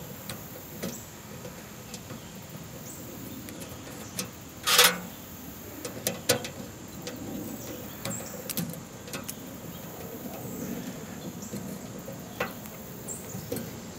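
A few light clicks and taps as a hex key is fitted into and turns a small stainless cap screw on a mailbox flag's pivot, the loudest a little before the halfway point, over faint bird chirps.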